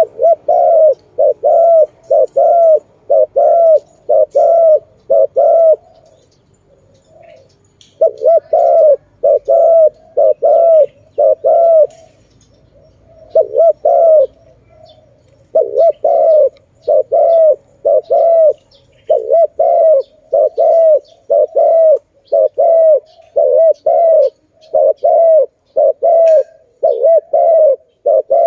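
A dove cooing: a rapid series of short, evenly spaced coos, about two a second, in runs broken by pauses of one to two seconds.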